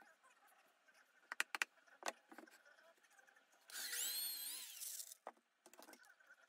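Light knocks and clicks of wooden parts being handled, then a small power tool motor runs for about a second near the middle, its pitch rising and then falling.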